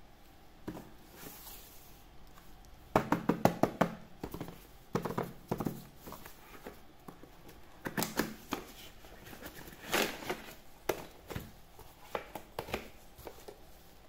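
Gloved hands opening a cardboard toy box and lifting out a plastic push-button game toy: scattered taps, clicks and scrapes, with a quick run of clicks about three seconds in.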